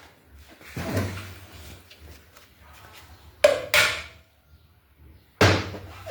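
Metal knocks and clunks of spanner and wheel parts as a motorcycle's front wheel spindle is undone: a dull knock about a second in, two sharp knocks at about three and a half seconds, and another loud one near the end.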